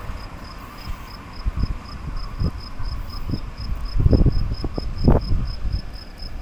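A cricket chirping steadily in a high, even pulse, about three to four chirps a second, over irregular low rumbling thumps that are loudest about four and five seconds in.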